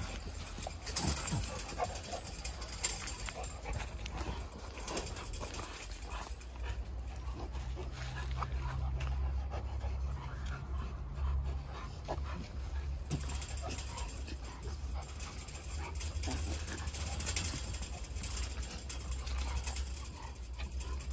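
Dogs panting and shifting about in grass, over a steady low rumble.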